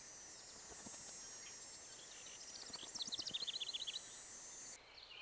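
Faint outdoor nature ambience: a steady high-pitched insect drone, with a bird singing a quick trill of about a dozen short notes from around two and a half to four seconds in. The ambience cuts off suddenly shortly before the end.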